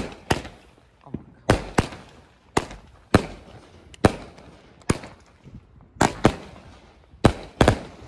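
Consumer aerial firework cake firing shot after shot: about a dozen sharp bangs over eight seconds, often in pairs a fraction of a second apart, each with a short ringing tail.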